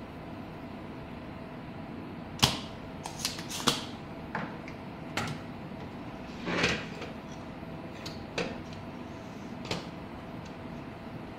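Scattered clicks and light knocks of a printed circuit board and its wiring being handled and turned over on a wooden desk, the loudest about two and a half seconds in and a short rattle near the middle, over a steady hum.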